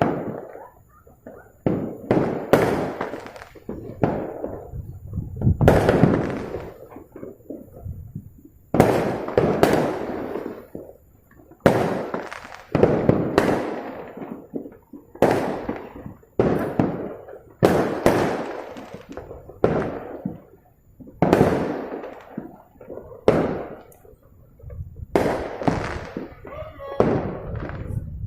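Fireworks bursting across the city: sharp bangs come one every second or two, each trailing off in a rolling, echoing rumble that runs into the next.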